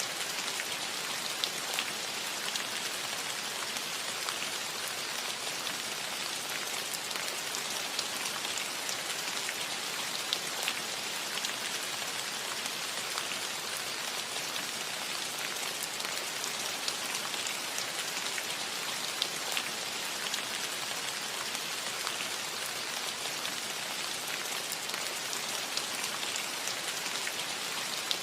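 Steady gentle rain pattering on a metal roof, a dense hiss of drops with many small individual ticks.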